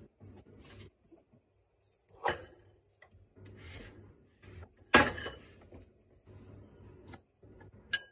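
Knocks and clinks of a ceramic electric herbal-medicine pot being handled by its lid and body: three sharp knocks, the loudest about five seconds in, and a short ringing clink near the end.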